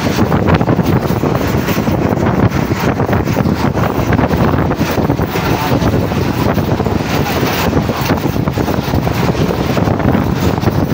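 Express passenger train running at speed: a steady, loud running noise of the moving train, with wind buffeting the microphone.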